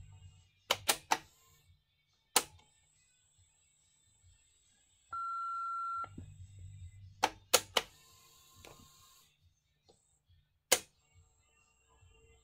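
Panasonic KX-T2727BS answering machine working through its microcassette routine. There are sharp mechanical clicks in small groups: three near the start, one at about two seconds, several around seven seconds and one near the end. A single steady beep lasts about a second, about five seconds in, and a brief rush of tape noise follows the later clicks.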